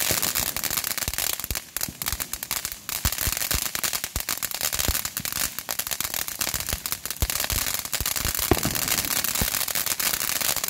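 Two ground fountain fireworks spraying sparks: a steady hiss with dense, rapid crackling and popping throughout, and one louder pop near the end.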